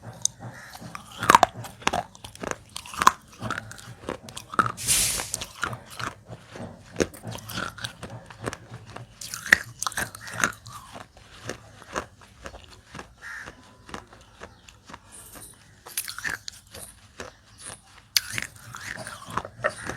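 A person biting and chewing pieces of dry, unsoaked fired clay close to the microphone: irregular sharp crunches and crackles, some loud bites standing out.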